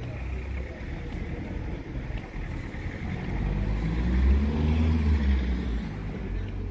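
A motor vehicle passes on the street, its engine note rising and then falling, loudest about four seconds in, over a steady low rumble.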